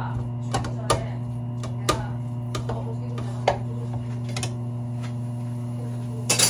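Irregular light clicks and taps, about one every half second to a second, over a steady low hum.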